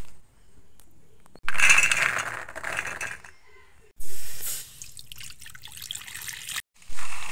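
Water being poured and splashing into an aluminium kadai, heard in short clips that start abruptly.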